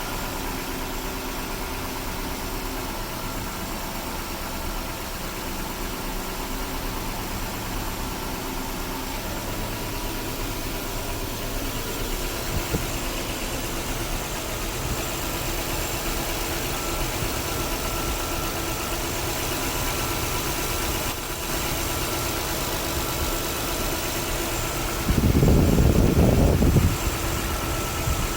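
Nissan Cedric PY31 engine idling steadily with an abnormal noise from the distributor, which the owners put down to a dry, failing centre-shaft bearing. A brief loud low rumble comes near the end.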